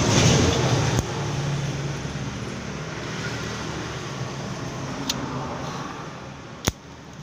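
Homemade welding machine humming steadily with a hiss over it, loudest in the first second and easing off near the end. A few sharp clicks come about one, five and nearly seven seconds in.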